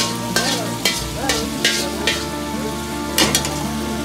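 Tomato-and-meat karahi frying in a steel wok over a gas flame, sizzling, while a slotted metal ladle scrapes and clanks against the pan several times, loudest about three seconds in. Faint background music runs underneath.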